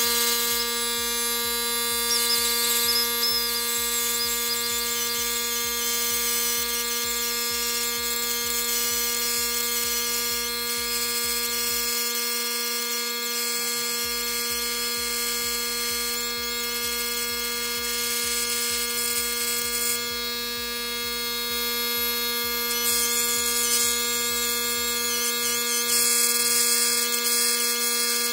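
Rotary tool on a flexible shaft running at a steady high speed, a constant whine, grinding down the motor mount inside an RC truck chassis to lower the motor for the pinion gear mesh.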